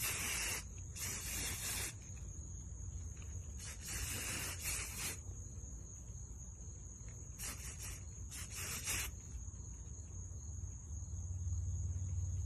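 Aerosol spray-paint can sprayed in short hissing bursts, about five of them in the first nine seconds, as a light coat is misted onto the undersides of faux leaves.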